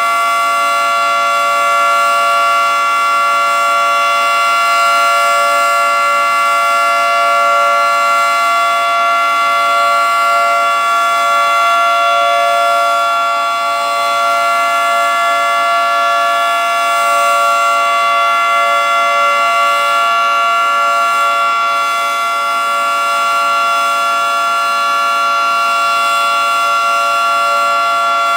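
Federal Signal 2T22A two-tone outdoor warning siren sounding the steady alert signal: a loud, held two-tone chord at a constant pitch, its loudness dipping slightly now and then.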